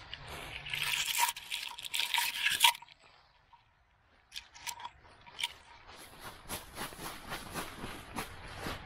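Dry fallen leaves crunching and rustling for a couple of seconds, a brief quiet, then footsteps crunching through the leaves at an even pace, about two to three steps a second.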